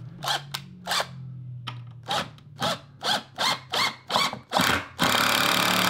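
Hitachi cordless impact driver driving a 75 mm screw through a cupboard panel into a wall stud: about ten short trigger bursts, then from about five seconds in a continuous run, the loudest part.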